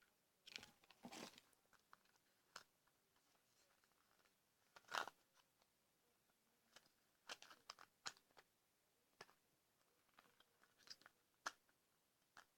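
Faint, scattered crinkles and clicks of plastic toy packaging and small plastic parts being handled, with one louder click about five seconds in.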